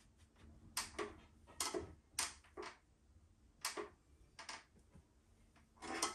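A paintbrush stroking and dabbing paint onto a hard epoxy tabletop and palette: a series of short brushy scrapes and taps at irregular intervals, the strongest one near the end.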